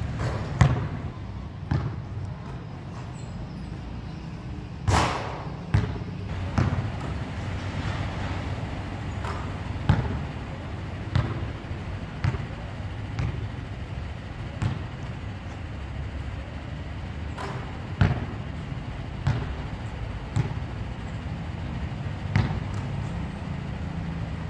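A basketball bouncing on a hard outdoor court and striking the backboard and rim during shooting practice: sharp, irregular thuds a second to several seconds apart, one ringing a little longer about five seconds in, over a steady low background rumble.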